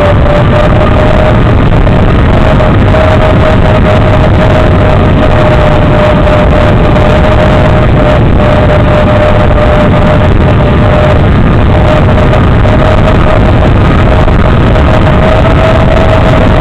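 FPV racing quadcopter's motors and propellers heard through its onboard camera audio: a loud, steady whine over rough, distorted noise, the pitch rising a little near the end.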